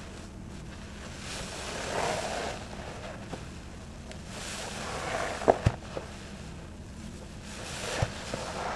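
A thick, suds-loaded foam sponge squeezed by hand, the foam squelching and crackling in three swells. Sharp clicks come twice in the middle and once more near the end.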